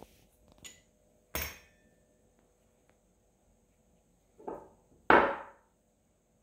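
Metal hand tools and engine parts clacking against a wooden table as they are handled and set down: a few sharp knocks, each with a short ring, the loudest two close together near the end.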